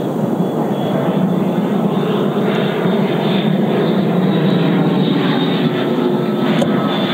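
JETFAN-130 electric ducted fan on a TOPRC Odyssey model jet running in flight overhead: a loud, steady rushing noise with a faint high whine.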